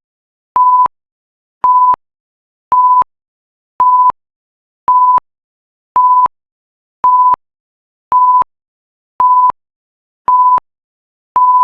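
Timer alarm: a single-pitched electronic beep repeating about once a second, each beep short and evenly spaced, signalling that the 31-minute countdown has ended.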